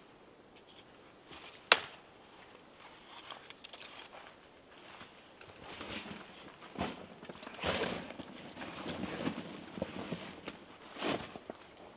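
Rustling and crinkling as camping gear is handled, with some footsteps on dry ground. A single sharp click about two seconds in is the loudest sound.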